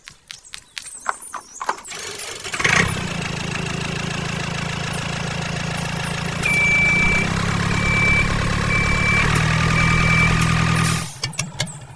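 Small electric motor switched on after a few clicks, running with a steady hum that gets louder partway through, with four short high beeps over it. It cuts off suddenly near the end.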